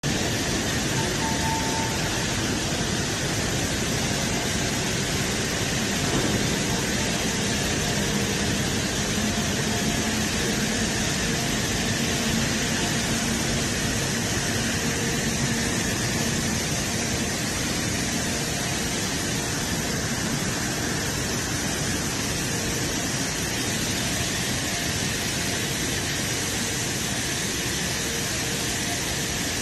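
Steady industrial hiss and hum of the running machinery of a metal color coating line in a large factory hall, with a few faint steady tones under the noise.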